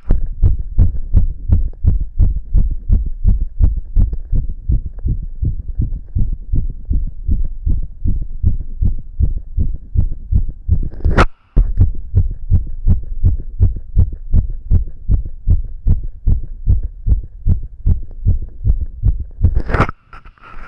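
A man's heartbeat beating fast: an even run of low thumps. The thumps are broken by a sharp click and a brief gap about halfway through, and by another brief gap near the end.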